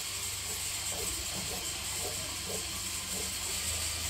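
Tailor's shears cutting through printed cotton fabric on a cutting table: faint soft snips, about five of them, over a steady hiss.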